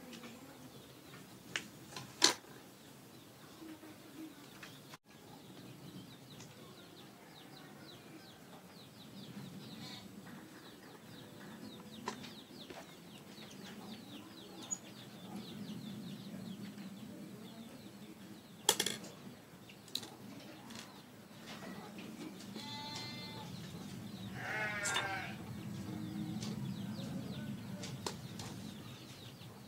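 Tools being picked up and set down on a workbench, with a few sharp clicks and clatters, over a low steady background. From about two-thirds of the way through, an animal bleats twice in wavering cries, with another starting near the end.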